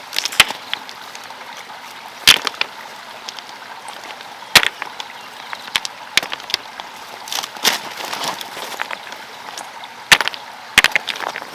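Sharp knocks every couple of seconds, with scraping and rustling between them, from hand work.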